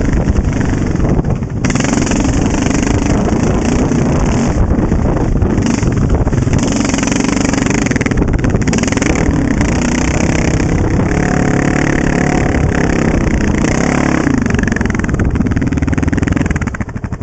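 Honda TRX700XX quad's single-cylinder engine with an FMF exhaust, running hard on a trail with the revs rising and falling. It eases off near the end.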